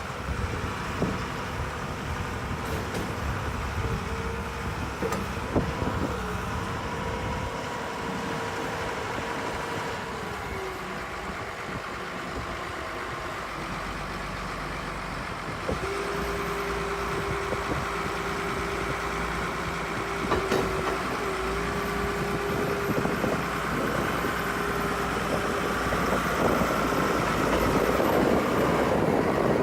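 Badger Cruz-Air excavator running, with a steady whine that shifts pitch twice and gets louder near the end.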